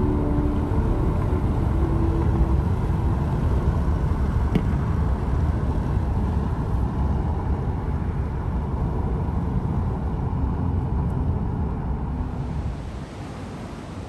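Car driving at speed, a steady low rumble of road and wind noise. It drops to a quieter hiss near the end.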